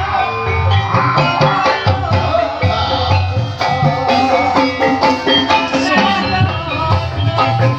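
Live accompaniment music for an ebeg horse-trance dance: ringing tuned percussion playing a dense melody over steady drum strokes, with a wavering melodic line above.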